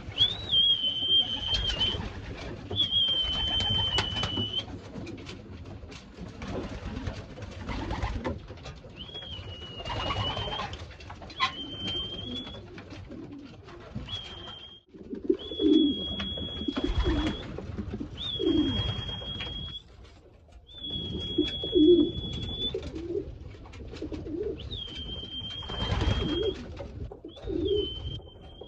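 Racing pigeons being called back into the loft with a whistle: about ten high, level whistle notes of a second or so each, repeated every few seconds. Pigeons coo underneath, louder from about halfway.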